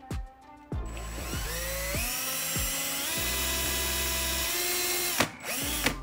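Cordless drill motor whining: a short pulse, then a rise to full speed held for about four seconds before it stops, and another short burst near the end. The bit is spinning on a metal rivet of a light switch's mounting strap without really cutting into it.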